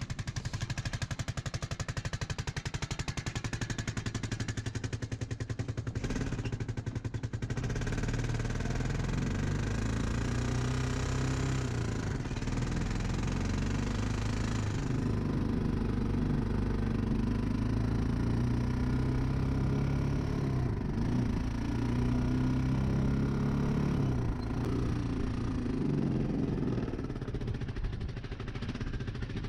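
ATV engine running as the four-wheeler is ridden. It starts with a rapid, even putter, then from about seven seconds in its pitch rises and falls in steps as the throttle and speed change.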